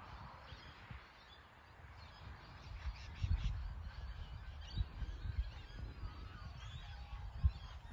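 Open-air field ambience: irregular low rumbling gusts and thumps on the microphone, with faint bird calls higher up.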